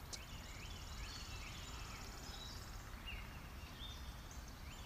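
Faint garden ambience: birds calling, a series of short repeated chirps with a fast high trill through the first half, over a steady low rumble.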